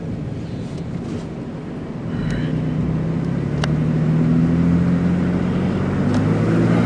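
Car engine pulling away and accelerating, its hum growing louder from about two seconds in, with road noise underneath.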